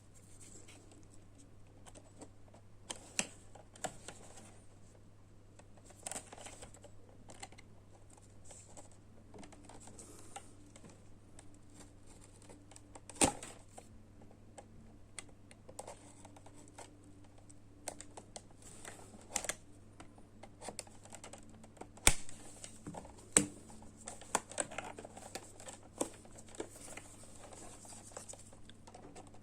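Hands handling a plastic USB-C wall charger and its packaging: irregular light clicks, taps and scratching, with a few louder sharp clicks, one near the middle and two close together later on. A faint steady low hum runs underneath.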